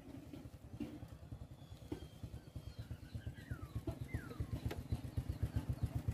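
Small engine running with a rapid, even low putter that grows steadily louder.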